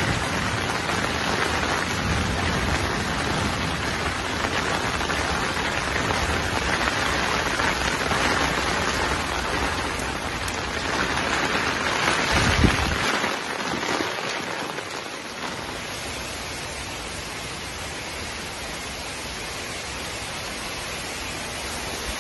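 Heavy rain falling steadily, a continuous hiss of drops on grass, leaves and a wooden deck. About halfway through comes a brief low thump, after which the rain sounds a little quieter and thinner.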